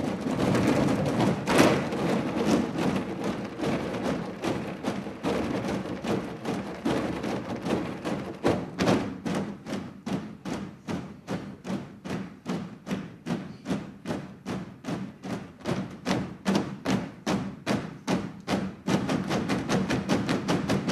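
A large ensemble drumming on recycling bins: a dense flurry of overlapping hits, which settles about eight seconds in into an even beat of about three strokes a second, then thickens again near the end.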